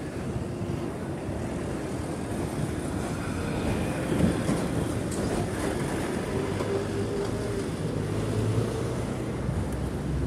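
A motor engine running steadily, a low rumble with a faint hum, briefly louder about four seconds in.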